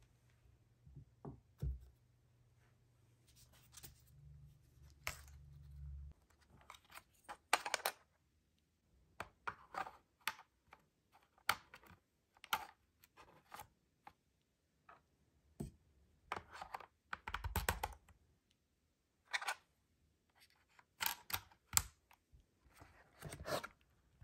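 Hands handling a plastic wireless keyboard on a desk: scattered light clicks, taps and rustles as AAA batteries are fitted into its battery compartment. A faint low hum lies under the first six seconds.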